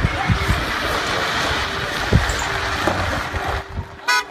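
Wind buffeting the microphone over the rumble of vans rolling in on gravel; a vehicle horn honks near the end.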